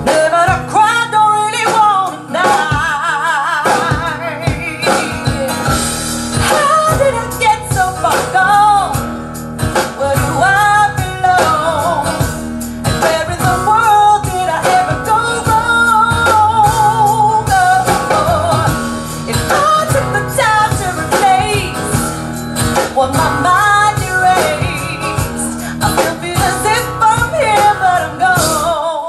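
Recorded music played loudly over an Audio Note hi-fi stereo system: a woman singing a blues-rock song over guitar and a steady bass line.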